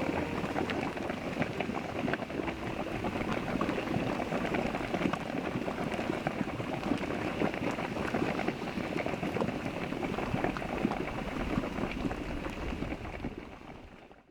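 Geothermal pool boiling: a dense, steady bubbling and crackling of many small pops and splashes, fading out near the end.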